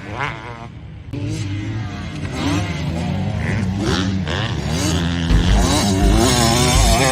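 Motocross bike engine revving up and down as it is ridden, its pitch rising and falling over and over. Low thuds come in from about five seconds in.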